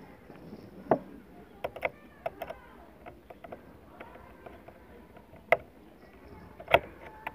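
Scattered sharp clicks and taps of a screwdriver and wire ends against the terminal screws of a switchboard being wired, a handful of separate knocks with the loudest about a second in and near the end.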